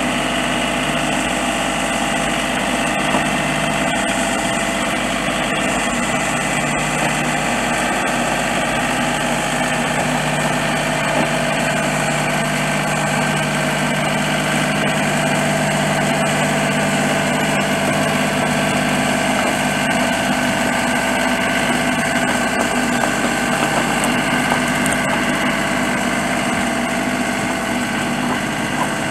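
Diesel engine of an LS G3033H compact tractor running steadily while it drags a loaded shed on skids in low range, four-wheel drive. The engine note holds steady, with a low hum that grows stronger for a stretch in the middle.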